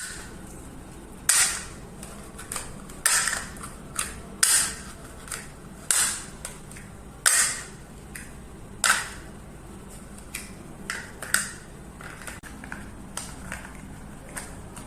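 Toy blocks banged and knocked together in an irregular string of sharp clacks, some hard and loud, others lighter taps.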